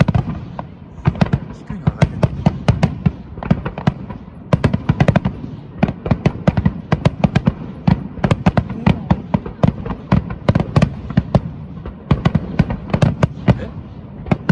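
Starmine fireworks display: a rapid, continuous barrage of shell launches and bursts, several sharp bangs a second over a rolling rumble of echoing booms.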